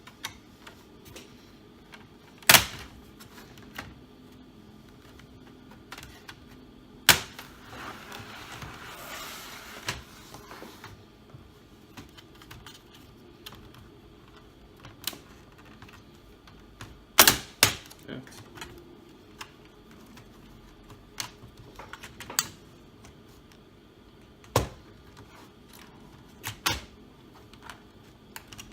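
Plastic retaining clips of a Dell Inspiron 3576 laptop's bottom cover snapping loose one by one as the cover is pried off the chassis: sharp clicks every few seconds, with a brief scrape of plastic on plastic about eight seconds in.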